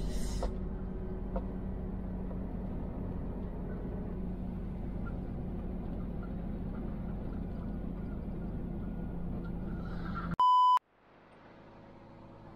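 Truck's diesel engine running with a steady low hum inside the cab, then near the end a single short, loud electronic beep at one pure pitch, after which the sound cuts to a much fainter hum.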